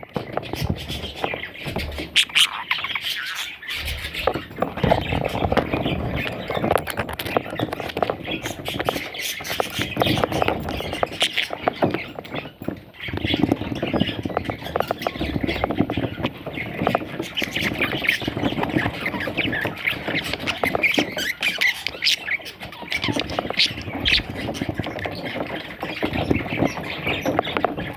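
Budgerigar nestlings calling almost without pause in raspy squawks and chirps, with a brief lull about halfway through.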